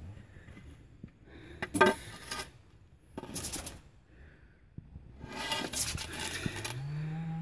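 Short bursts of scraping and clattering, three times, as a wooden stick pokes around a plastic gas can on concrete. Near the end a low hum starts, rises in pitch and holds steady.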